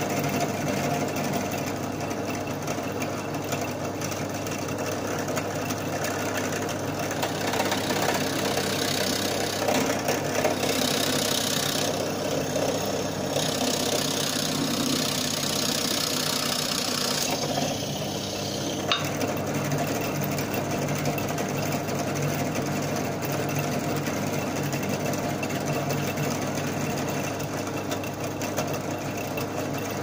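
Bench drill press motor running steadily while its bit drills holes into a wooden pole. The higher cutting noise of the bit in the wood rises twice, from about a quarter of the way in to just past the middle, and then the motor runs on alone.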